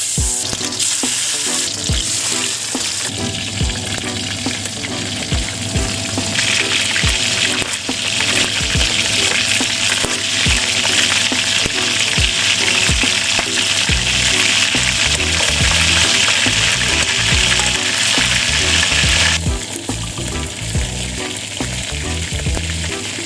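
Seasoned chicken pieces browning in hot corn oil, a steady sizzle that grows louder about six seconds in and eases back near the end.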